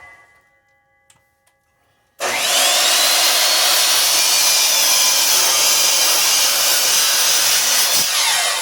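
A 10-inch compound miter saw winds down to near quiet, with a couple of small clicks. About two seconds in its motor starts suddenly with a rising whine and runs loud and steady for about six seconds as the blade cuts through a chunk of firewood.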